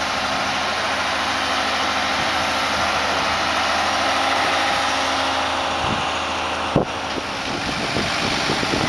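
Boat travel lift's engine running steadily, with a single sharp knock about seven seconds in.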